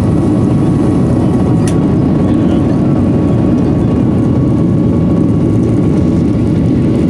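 Steady jet engine and airflow noise inside the cabin of a Boeing 737 airliner climbing after takeoff: a loud, low rumble with a faint, even engine whine over it. A short click about a second and a half in.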